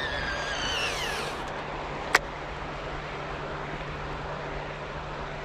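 Baitcasting reel spool whining during a cast, several tones falling in pitch together as the spool slows and stopping about a second and a half in, then a single sharp click, over a steady low background rumble.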